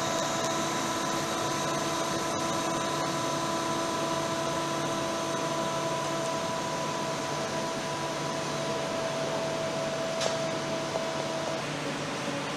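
Malpensa Express electric train rolling slowly to a stop beside the platform: a steady whirring hum with several held tones. One of the tones fades out near the end, and a short click comes about ten seconds in.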